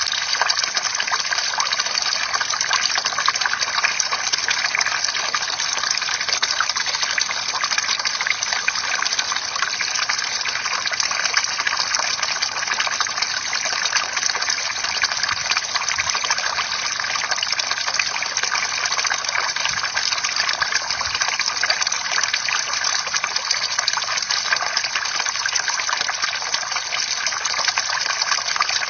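Bamboo water fountain: a steady stream of water pouring and splashing, without pause.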